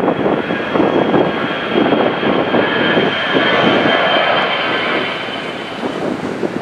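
Jet airliner engines running: a loud rushing sound with a steady high whine that stops near the end.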